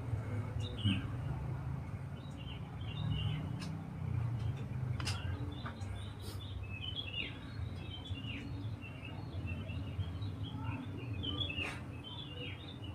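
Small birds chirping in many short high calls, some sliding down in pitch, over a steady low hum.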